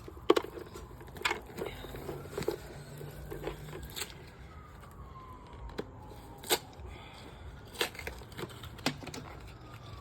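Packaging being handled and pulled open: crinkling and tearing, with scattered short clicks and light knocks.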